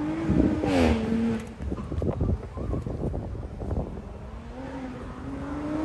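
Audi B9 RS4's 2.9-litre twin-turbo V6 on a hillclimb run. The engine rises in pitch, then drops sharply about half a second in as it comes off the power, followed by a second or so of crackling pops. Near the end it pulls again, rising in pitch.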